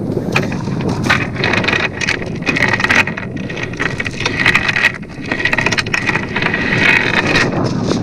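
Wind buffeting the microphone at a sailboat's bow, with a crackling hiss over most of it.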